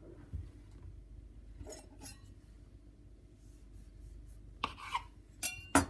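Faint rubbing and handling on a kitchen countertop, then two sharp clinks near the end, the second one louder and ringing briefly.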